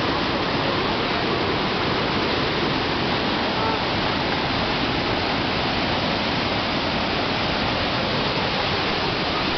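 Waterfall cascading over rocks: a steady, unbroken rush of white water.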